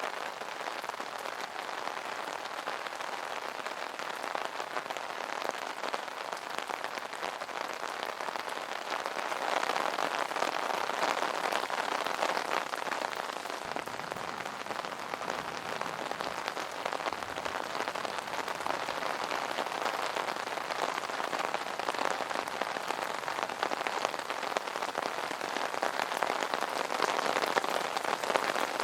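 Steady rain pattering on an umbrella's fabric canopy, a dense patter of drop hits that swells a little about a third of the way in and again near the end.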